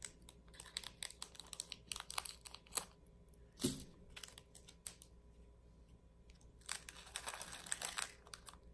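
Small plastic bags of diamond-painting drills crinkling as they are handled over a plastic tray, with scattered light clicks and taps, busiest near the end.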